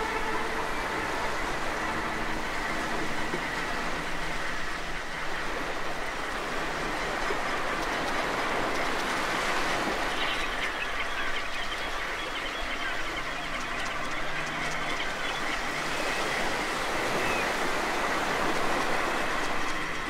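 Steady underwater rushing noise picked up by a dive camera on a coral reef, even in level throughout.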